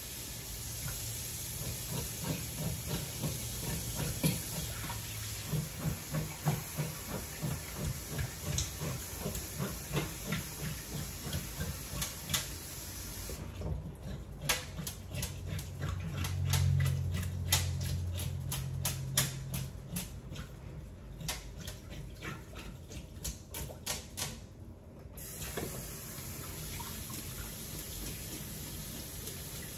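Fish being scaled with a knife in a sink, in repeated scraping strokes about two a second over a hiss of water, becoming sparser clicks and scrapes past the middle.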